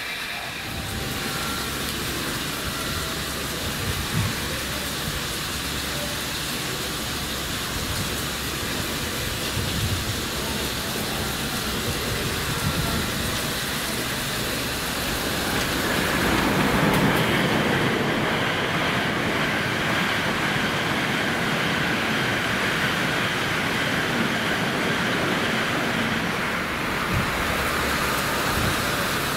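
N700 series Shinkansen passing through a station over a steady spray hiss from the snow-melting track sprinklers. The train's rush grows louder about halfway through, with a high whine over it.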